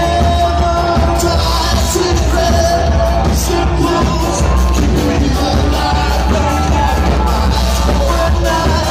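A live rock band playing loud: electric guitars, bass and drums with a singer, the bass heavy and booming.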